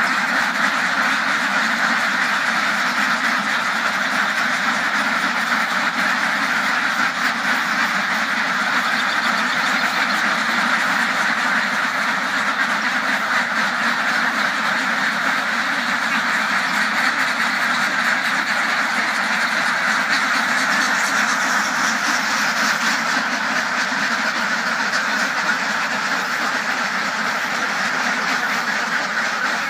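A large flock of domestic ducks quacking all at once, a dense, unbroken chorus of overlapping quacks.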